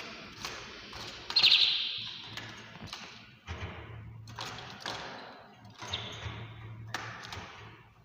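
Wire birdcage being handled by hand: a series of taps and rattles of the metal bars, the loudest a sharp ringing rattle about a second and a half in.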